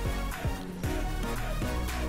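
Background music with a steady beat and deep bass hits that drop in pitch.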